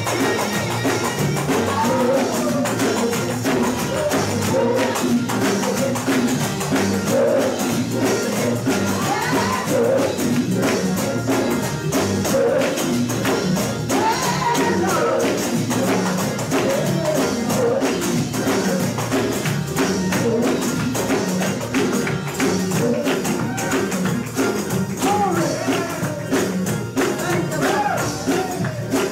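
Live gospel band playing an up-tempo praise break: organ, electric bass and drum kit, with a tambourine jingling steadily on the beat.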